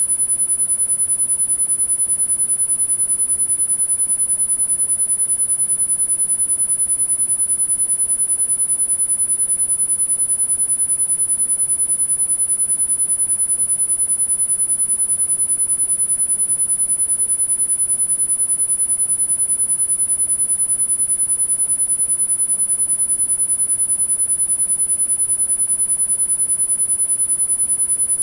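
A single very high-pitched pure sine tone, held perfectly steady and unchanging: a tinnitus sound-therapy tone.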